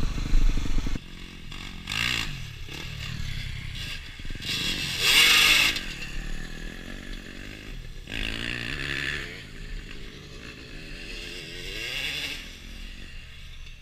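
A dirt bike engine runs loud close by for about a second, then drops away. Other dirt bikes are then heard revving and riding past, in several surges that rise and fall in pitch, loudest about five seconds in.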